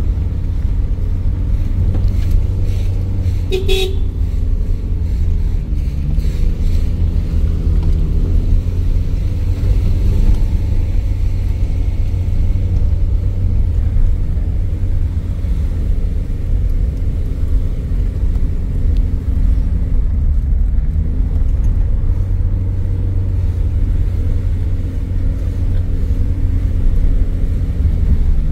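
Motor vehicle engine running with heavy, steady low road rumble, its engine pitch stepping up and down, and a few brief knocks a few seconds in.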